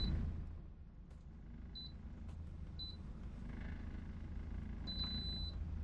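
Steady low rumble of the catamaran's engines motoring, with short high electronic beeps about two and three seconds in and a longer beep near the end.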